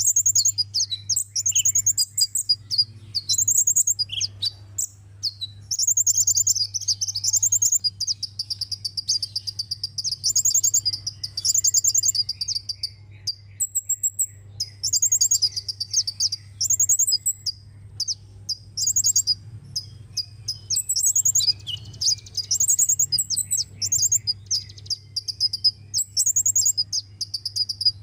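Sunbird song: rapid, high-pitched twittering trills delivered in repeated bursts with short pauses, over a faint steady low hum.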